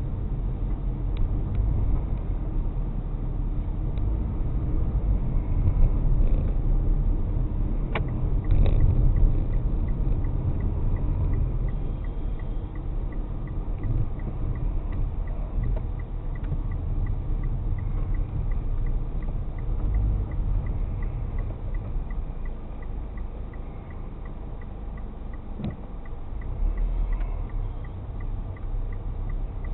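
A car driving, heard from inside the cabin: a steady low engine and road rumble. A faint, even ticking, about two a second, joins about a third of the way in, with a couple of sharp clicks.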